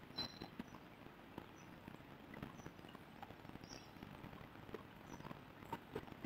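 Faint taps and scratches of a marker writing on a whiteboard, with a brief high squeak of the tip near the start.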